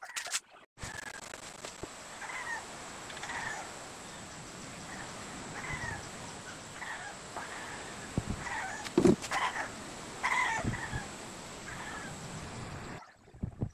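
An animal calling over and over in short calls, roughly one or two a second, over a steady hiss, with a single louder knock about nine seconds in.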